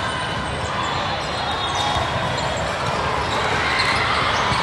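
Steady murmur of spectators' voices in a gym, with a few short knocks of a volleyball being hit or bounced.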